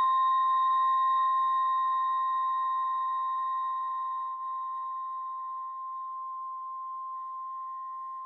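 A school bell's tone ringing out after being struck, one clear pitch with a few overtones that slowly fades away.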